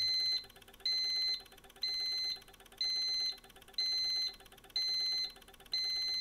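Electronic alarm horn beeping a high tone in steady pulses, about one beep a second, switched on and off by the Siemens LOGO! controller's frequency generator: the emergency-stop alarm, sounding because the e-stop button has been pressed.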